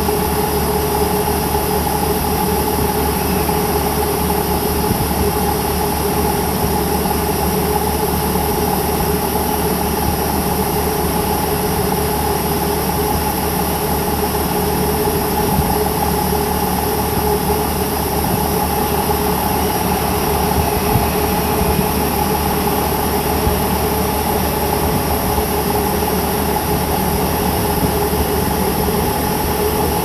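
Japanese railway level-crossing warning bell sounding steadily, a repeated ringing at an unchanging pitch: the crossing is closed and a Seibu Ikebukuro Line train is approaching.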